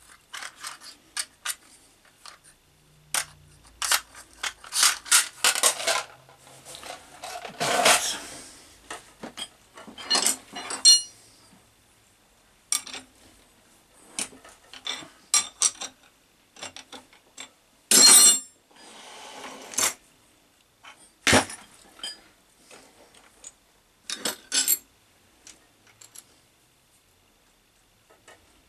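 Metal tools and workpiece parts clinking and clattering as they are handled and set down, many separate sharp knocks, some ringing briefly, with a few longer scrapes in between.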